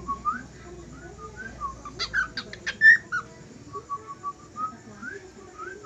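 Cockatiel whistling a run of short notes that glide up and down, with a burst of sharper chirps about two to three seconds in, the loudest part.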